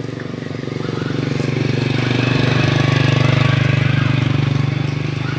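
A vehicle engine running with a fast, even pulsing beat. It grows louder to a peak about three seconds in and then fades, as a vehicle passing close by would.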